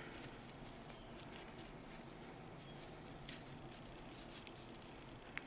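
Faint rustling of a cloth shirt and small clicks of a plastic action figure being handled in the fingers, with a sharper click near the end.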